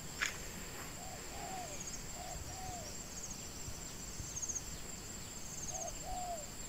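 Faint bird calls: pairs of short notes that rise and fall, heard four times, over a steady high-pitched insect drone.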